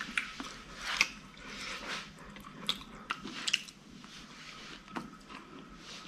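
Close-up chewing and mouth sounds of someone eating a piece of cooked hairtail fish, with a handful of short, sharp clicks scattered through it, the loudest about a second in and again halfway through.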